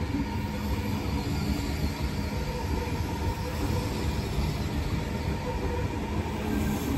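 Double-deck electric passenger train running past the platform: a steady rumble of wheels on the rails that holds evenly throughout.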